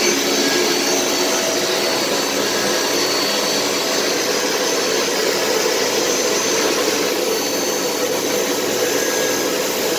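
Chemcut XL etch line running: a steady machine whir with several faint steady tones, unchanging throughout.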